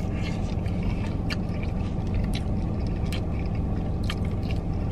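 Peeling and chewing boiled shrimp: scattered small clicks of shell and crinkles of a plastic bag, over the steady low hum of an idling car.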